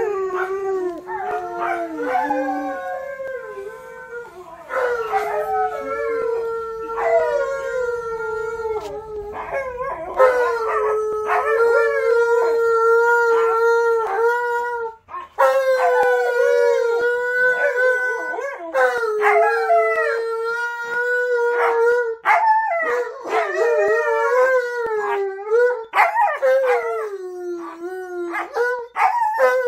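Dogs howling, among them an Alaskan malamute: long, drawn-out howls that rise and fall in pitch, at times two voices overlapping, with a brief break about halfway through.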